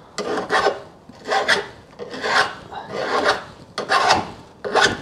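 Hand file scraping back and forth across the cut edge of a steel bar, about six strokes at roughly one a second, filing off the melted dross left by a diamond cut-off wheel.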